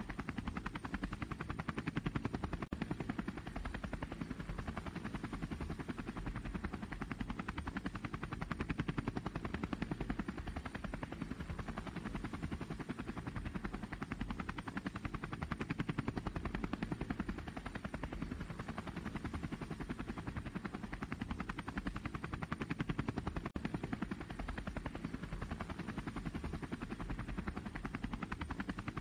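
A DJI Phantom quadcopter's propellers and motors buzzing steadily in flight.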